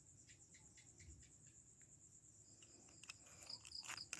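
Crickets chirping faintly in a fast, steady trill; from about three seconds in, a second pulsing chirp and irregular sharp clicks join.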